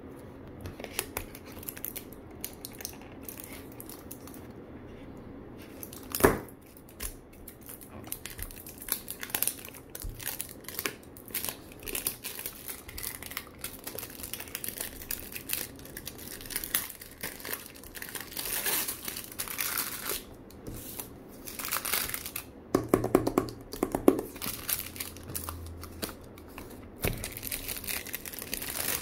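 Clear plastic shrink wrap being torn and peeled off a cardboard box, crinkling and crackling throughout. There is a single sharp knock about six seconds in and a louder burst of crumpling handling around twenty-three seconds in.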